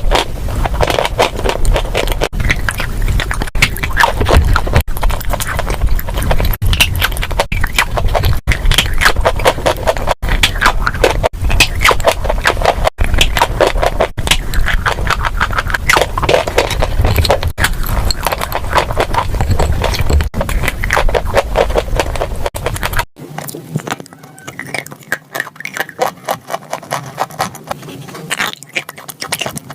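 Close-miked crunching and chewing of dry edible chalk, a dense crackling scrape cut into short clips. About 23 seconds in it drops to a quieter, softer stretch.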